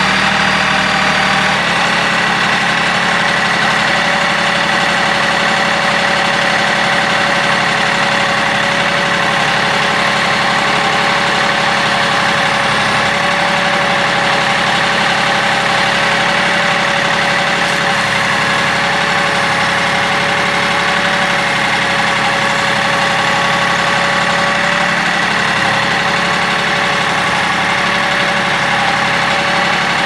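Kioti CK3510 compact tractor's diesel engine running steadily.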